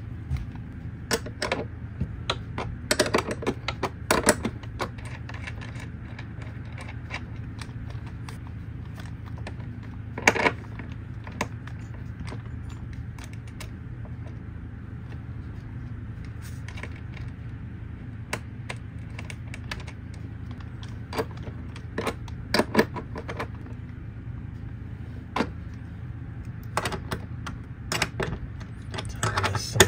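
Metal clinks and clicks of a wrench, nuts and copper cable lugs as battery cables are bolted onto terminal studs, coming in scattered clusters, over a steady low hum.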